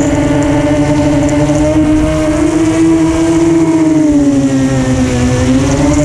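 Electric motor and propeller of an FPV model aircraft whining steadily in flight over a rushing noise. The pitch dips slowly about four to five seconds in, then rises again as the throttle changes.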